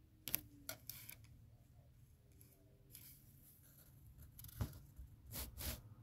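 A few sharp clicks and rustles, a quick cluster about a second in and another near the end, over a faint steady background hum. The source is most likely the phone being handled.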